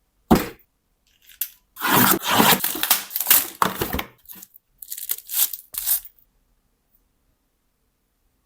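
Packaging being torn open and crinkled by hand while unboxing. A sharp knock comes near the start, then about two seconds of loud tearing and rustling, a few shorter crinkles around the fifth and sixth seconds, and then nothing.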